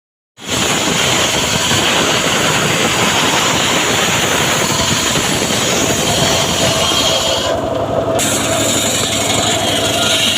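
Homemade sawmill running and cutting teak: a loud, steady mix of engine drone and saw hiss that starts about half a second in. The high hiss drops out for about half a second near eight seconds in, then resumes.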